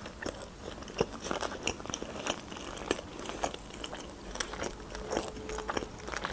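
A person chewing sushi rolls close to the microphone, with many short, irregular mouth clicks.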